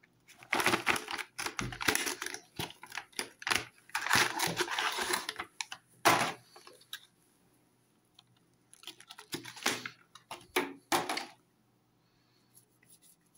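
Cardboard box and plastic tray of jumbo crayons being opened and handled: a quick run of clicks, scrapes and crinkles, a pause of about two seconds, then another burst of clicking as the crayons are taken out.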